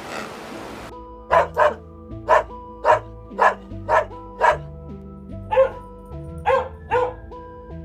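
Dog barking: a quick series of about ten short barks, starting about a second in, over background music.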